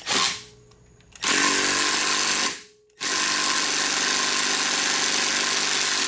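Cordless impact gun hammering a 14 mm flywheel nut tight on a 49cc 139QMB scooter engine. A brief blip comes first, then two steady runs: one of about a second and a half, and after a short pause a longer one of about three seconds.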